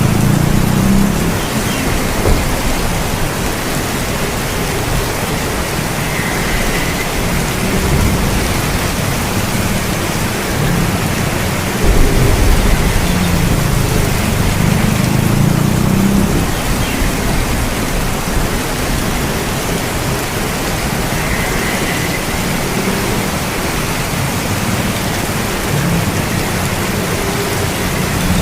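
Heavy rain falling steadily, with low thunder rumbling that swells and fades at intervals; a sudden louder rumble comes just before the middle.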